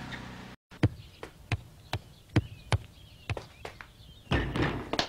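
A basketball bouncing on pavement, two or three bounces a second, then a louder, ringing hit a little past four seconds in as a shot strikes the hoop. Faint bird chirps sound behind it.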